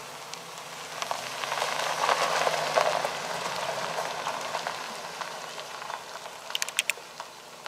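A 2009 GMC Sierra 1500 pickup's tyres crunching over loose gravel as it rolls slowly past, with a low engine hum underneath. The crunch swells to its loudest two to three seconds in and fades as the truck moves away, with a few sharp clicks of popping stones near the end.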